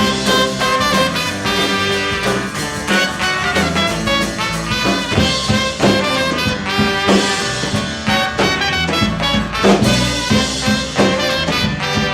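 Rock band playing live, an instrumental passage with horns over drums, bass and guitars.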